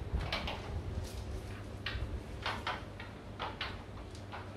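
Irregular light clicks and knocks, about two a second, over a steady low hum.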